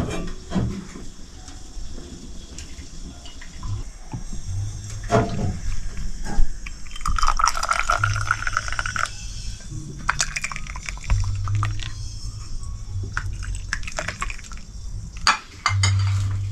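Tea being poured into a glass, the pitch of the pour rising as the glass fills, with a few light clinks of glassware.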